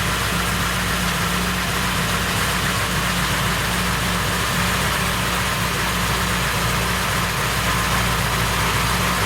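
Warmed-up fuel-injected car engine idling steadily, with a timing chain that the mechanics hear ringing and rattling.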